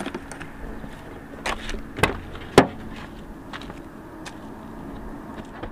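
Three short, sharp clicks and knocks, the last the loudest, over steady outdoor background.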